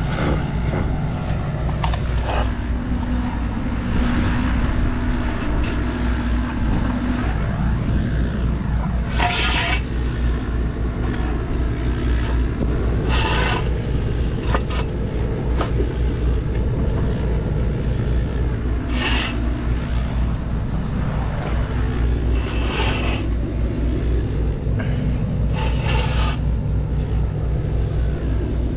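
A steady engine running with a constant low hum. About five short, harsh sounds break in over it at intervals.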